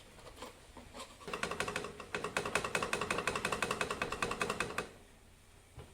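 Rapid metallic clicking, about ten clicks a second for roughly three and a half seconds, from hand work on fitting a Yamaha RX100's original silencer to its carbon-fouled exhaust pipe. It starts about a second in and stops abruptly near the end.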